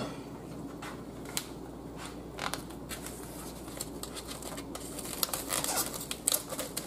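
Plastic wrapping on a tube of raw ground beef being handled and worked open: scattered clicks and crinkles that grow busier over the last couple of seconds.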